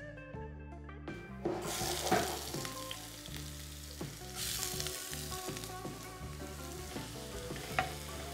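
Chopped onions go into hot ghee in a non-stick wok and fry with a sizzle that starts about a second and a half in, while a spatula stirs them. There are a couple of sharp taps, one about two seconds in and one near the end. Soft guitar background music plays underneath.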